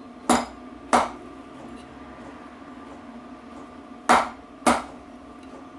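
Soft-faced hammer striking a 36mm socket used as a drift, tapping a new oil seal into the gearbox casing: two blows, a pause, then two more.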